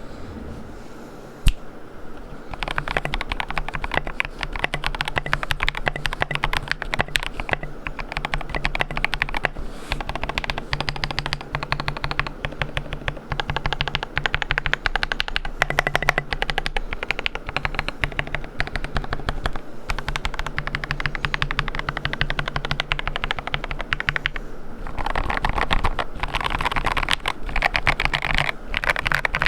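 Fast, continuous typing on a KBD67 Lite R1 mechanical keyboard with lubed and filmed Gateron Milky Yellow linear switches and SA keycaps. A single sharp click comes about a second and a half in, then a dense run of keystrokes starts about a second later. The typing gets louder near the end.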